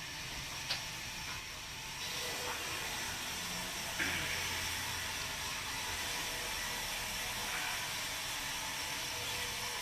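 Sawmill band saw running, a steady hiss that steps up sharply about four seconds in, with one short click just under a second in.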